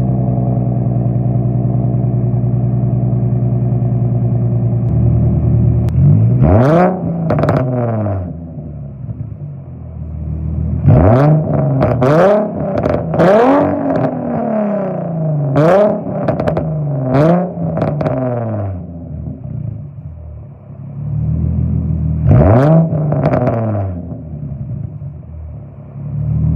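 Nissan 350Z's 3.5-litre V6 through an aftermarket Agency Power exhaust, idling steadily for about five seconds, then revved in quick throttle blips: two about six seconds in, a run of about six between roughly eleven and eighteen seconds, and two more near the end, each blip rising sharply and falling back to idle.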